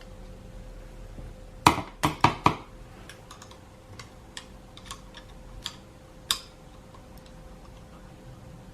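Metal tools clicking and tapping on a Honda GSR cylinder head as a valve spring compressor is worked to free the valve keepers: four sharp taps in quick succession about two seconds in, then scattered lighter clicks and one more tap a little past six seconds.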